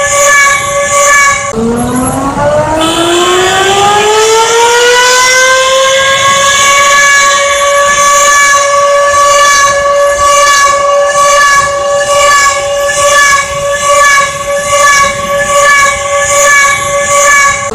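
Civil defense warning siren sounding a steady wail, cut off abruptly about a second and a half in and restarted, winding up in pitch over several seconds to a steady tone that swells and fades at a regular rhythm.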